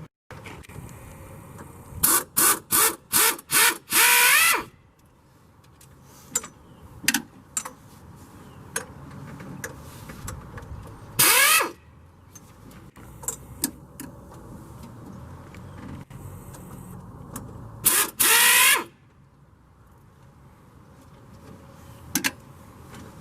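Handheld power tool run in trigger bursts, with its motor pitch rising and falling as it spins up and down. There are five short bursts and a longer one, then one more run about halfway through and two near the end. Scattered clinks and knocks of tools fall between the runs.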